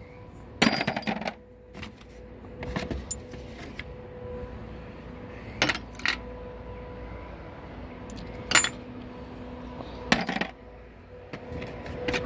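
Brass plumbing fittings and valve parts clinking as they are handled, dropped and sorted: a short clatter about a second in, then single sharp metal clinks every couple of seconds, over a faint steady hum.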